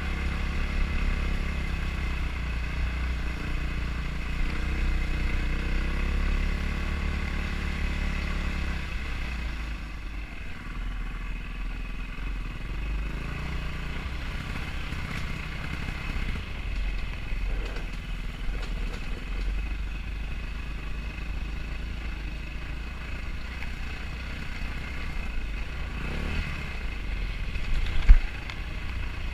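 Enduro motorcycle engine running, heard from on board as the bike rides a dirt trail, its note rising and falling with the throttle for the first several seconds and then easing off to a quieter, lower run. A single sharp knock near the end.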